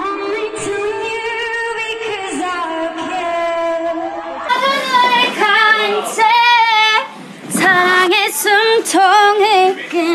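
A woman's pop singing voice holding high notes. About four and a half seconds in, the sound cuts to a thinner, closer-sounding voice singing short phrases with wide vibrato.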